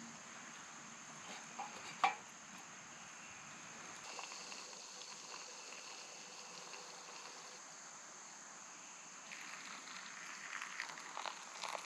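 Steady high-pitched insect chirring, with a sharp knock about two seconds in and a run of small clicks and clinks near the end.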